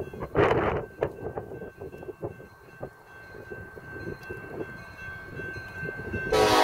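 Railroad grade-crossing bell ringing with repeated strikes as a diesel locomotive approaches. Near the end the locomotive's horn starts blowing loud.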